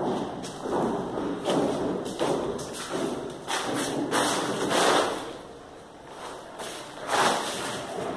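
Footsteps thumping and crinkling across a floor covered in plastic sheeting, in uneven steps about once or twice a second.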